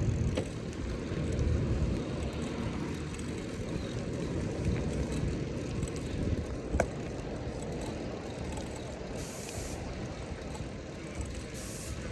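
Street traffic noise with a low, steady rumble, broken by a sharp click about seven seconds in and two short high hisses near the end.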